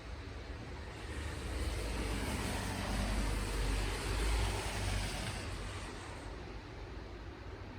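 A vehicle passing by: a rush of tyre and engine noise with a low rumble that swells to a peak around the middle and then fades away.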